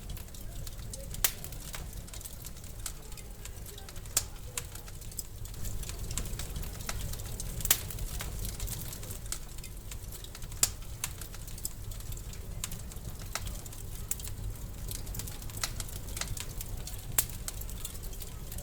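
Wood fire burning in a fireplace: a steady low rumble with irregular sharp crackles and pops, a few of them loud.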